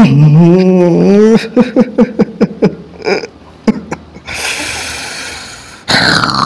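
A man's wordless vocal sounds as the medium goes into trance: a long wavering moan, then a quick run of short sharp huffs, then a long hissing breath out, with another short hiss near the end.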